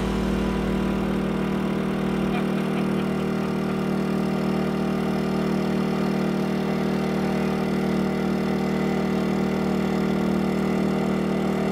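A small engine running steadily at constant speed, an even drone that never changes pitch; a deeper rumble underneath drops away about two seconds in.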